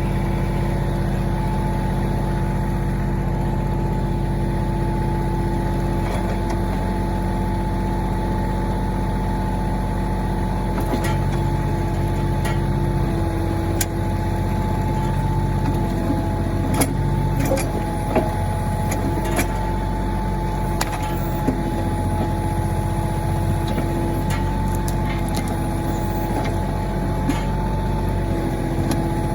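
Mahindra 1626 tractor's three-cylinder diesel engine running steadily under load as its backhoe digs out a stump, with a steady whine over the engine drone. From about eleven seconds in, scattered sharp knocks and clicks come through as the backhoe works.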